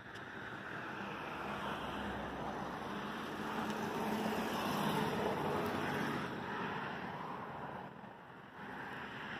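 Road traffic: a car passing, its noise swelling to loudest about halfway and fading, then a second vehicle coming up near the end.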